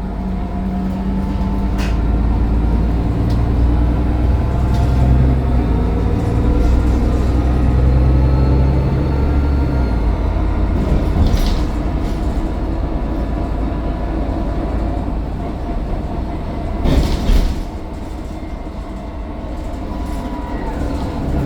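Mercedes-Benz Citaro O530 bus's diesel engine accelerating, with a faint high turbo whine; the engine note rises for about ten seconds, then eases off. A short clattering burst comes about seventeen seconds in.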